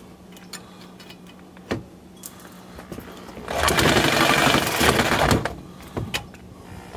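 Reciprocating saw cutting a threaded rod clamped in a vise. A few light taps as the blade is set against the rod, then about two seconds of loud cutting from about halfway in, stopping with a tap or two after.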